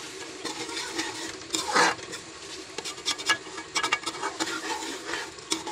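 Metal spoon scraping and knocking against a steel pot as chicken curry is stir-fried in ghee, in irregular strokes, the loudest scrape about two seconds in.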